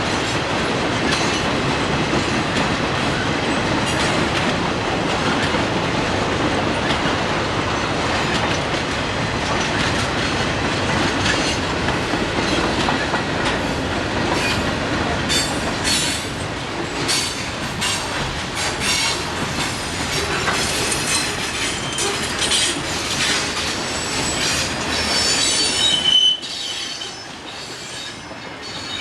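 Freight train cars rolling past: a steady rumble of wheels on rail, with clicks over rail joints and high wheel squeals growing in the second half. The sound drops off suddenly near the end.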